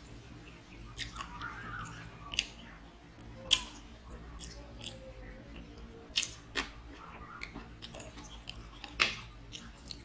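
Chewing and gnawing on a chicken leg bone close to the microphone, with sharp cracks now and then, about five of them loud.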